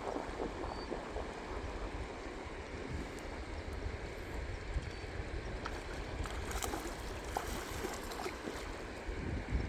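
The water of a small river running steadily, with a low rumble beneath it and a few faint clicks about two thirds of the way through.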